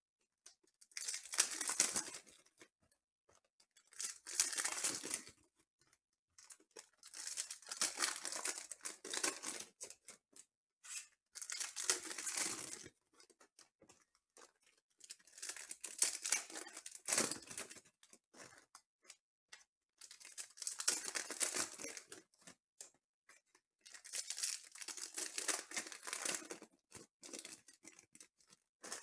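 Foil wrappers of trading-card packs being torn open and crinkled, one pack after another: about seven bursts of tearing and crinkling, each a second or two long, with short pauses between.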